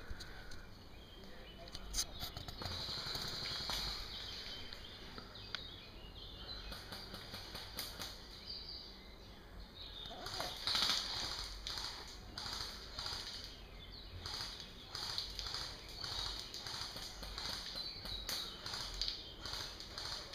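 Woodland ambience with birds singing high and thin in the background. From about halfway through comes a steady run of light clicks or taps, roughly two a second.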